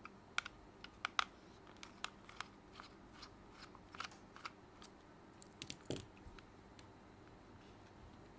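Small sharp plastic clicks and snaps from a PS5 DualSense controller's shell clips being pried apart, stiff because the controller is new and never opened, in an irregular string with a duller knock about six seconds in.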